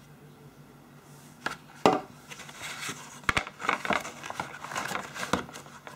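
Hands handling a phone box's cardboard packaging: a few sharp clicks and knocks, the loudest about two seconds in, then scraping and rustling of the card as the insert is moved.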